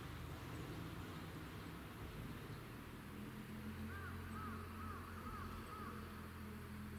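Low steady engine hum from a distant diesel railcar approaching along the track. About four seconds in, a bird calls over it with a quick run of five or six short up-and-down notes.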